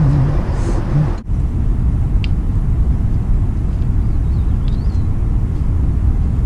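Wind buffeting the microphone outdoors: a steady, loud low rumble, with a brief drop about a second in.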